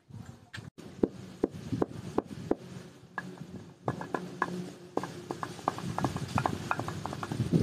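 Wooden pestle knocking inside a mortar carved from bamboo root: irregular hollow knocks, about two a second at first and coming closer together later, with a louder burst of noise right at the end.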